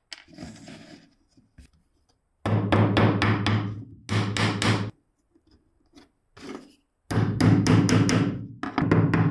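Small hammer tapping wooden dowels into holes in plywood parts lying on a wooden bench. The taps come in quick runs of about four or five a second, with pauses between the runs.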